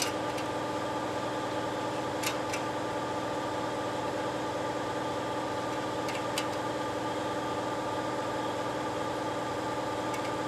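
Steady machine hum, even and unbroken, with a couple of faint clicks as the shot-up aluminium pop can is handled.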